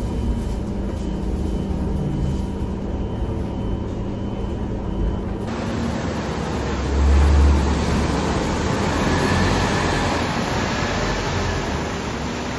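Scania K230UB city bus running, first heard from inside the cabin as a steady low engine and drivetrain hum. About five and a half seconds in, the sound cuts abruptly to the bus heard from outside as it pulls away. Its engine surges in a deep rumble a second or two later, then eases as it drives off.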